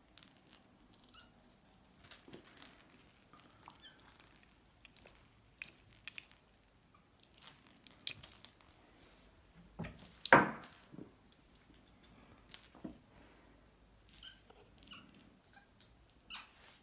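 Small bell inside a cat's toy ball jingling in short bursts as a kitten chases and bats it across a carpet, with one louder knock and jingle about ten seconds in.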